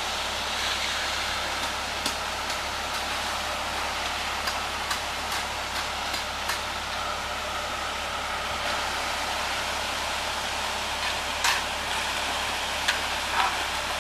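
Concrete mixer truck running steadily while wet concrete slides down its chute into the sidewalk form, with a few sharp clinks of shovels and rakes on the concrete and forms.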